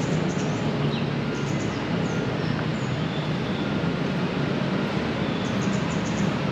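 Steady rumble of city traffic, with a few faint bird chirps high above it.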